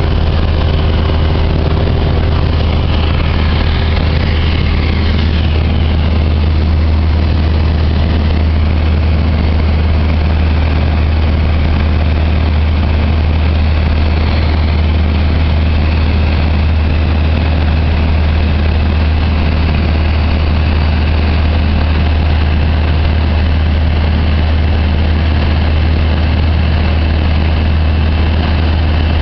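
Light aircraft's engine and propeller droning steadily in flight, heard from inside the cabin.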